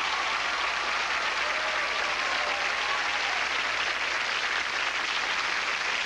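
Studio audience applauding steadily.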